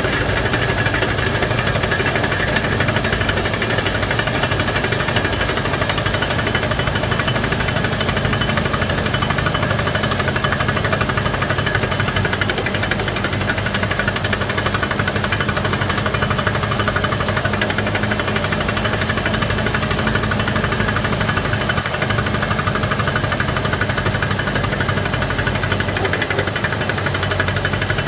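Truck-mounted hydraulic guardrail drilling machine drilling, a loud, continuous rapid hammering clatter that never pauses.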